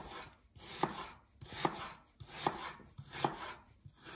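Chef's knife cutting thin slices from a peeled Granny Smith apple on a wooden chopping board: each stroke is a short crisp slice ending in a knock of the blade on the board, about five in a steady rhythm a little under a second apart.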